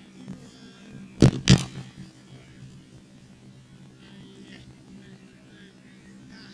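Two sharp impacts a fraction of a second apart, about a second in, over a steady low hum.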